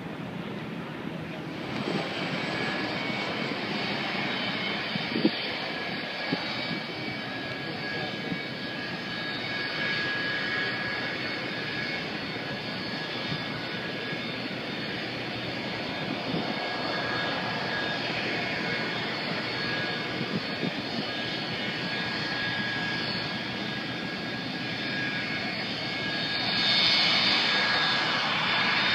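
Jet airliner engines running steadily, a high whine over a broad rush, growing louder near the end. There is a short knock about five seconds in.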